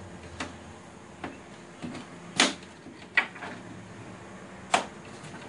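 Plastic filament guide tubes being pushed and clicked into their clips on the back of a 3D printer's case: about six short sharp clicks and knocks, the loudest about two and a half seconds in, another about a second later and one near the end.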